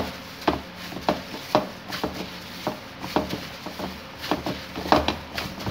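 A plastic-gloved hand kneads and slaps spiced minced beef for chapli kababs in a steel bowl: a run of short, irregular slaps and presses, about two or three a second.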